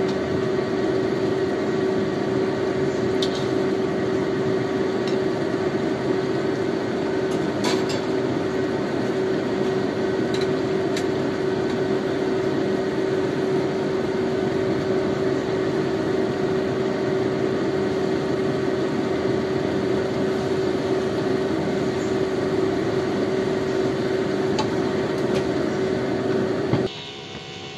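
A steady machine hum with an airy whoosh, held on one pitch, with a few light clinks of a metal ladle against the wok and plate. The hum cuts off suddenly near the end.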